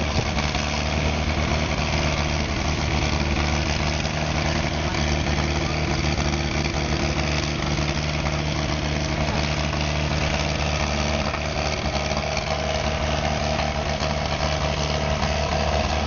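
Motor grader's engine running at a steady pitch.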